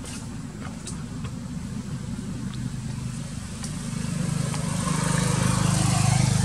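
A motor vehicle's engine running steadily as a low hum, getting louder over the last couple of seconds, with a few faint ticks early on.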